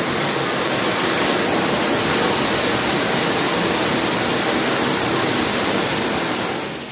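Anar (flower pot) firework fountain spraying sparks with a steady, loud hiss, dying down as it burns out near the end.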